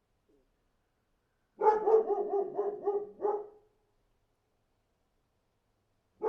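A dog barking: a quick run of about seven barks over two seconds, then a pause, and one more bark near the end.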